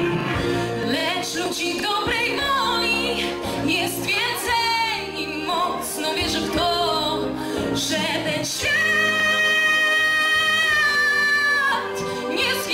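Young woman singing solo into a handheld microphone over instrumental accompaniment, with vibrato on her notes. About nine seconds in she holds one long high note for about three seconds.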